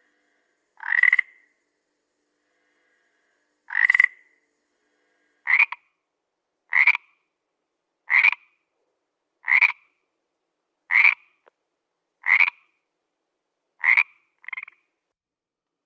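A frog croaking: ten short, separate croaks, slightly rising in pitch, at first about three seconds apart and then a steady one every second and a half or so, with a fainter croak following close on the last.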